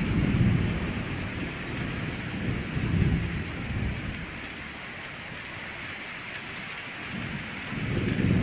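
Thunderstorm: low rumbles that swell and fade, loudest near the start, about three seconds in and near the end, over a steady rushing hiss.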